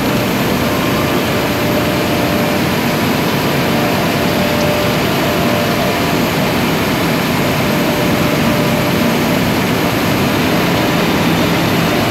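Ice machine running with a steady, even mechanical drone and a faint constant hum.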